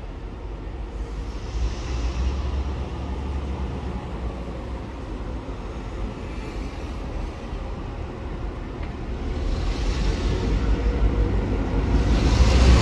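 Two NSW 49 class diesel locomotives running light, their engines a low rumble that grows steadily louder as they approach, with a rising hiss of wheel and rail noise near the end.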